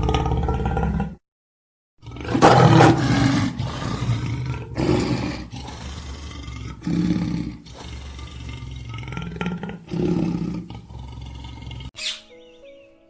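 Tiger roaring: one loud roar about two and a half seconds in, then a series of shorter roaring calls every couple of seconds.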